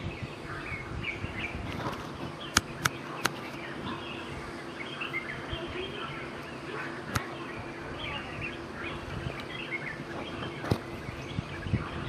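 Forest ambience with many small birds chirping on and off in the background and a faint steady hum underneath. A few sharp clicks cut through, three close together about a third of the way in and two more later.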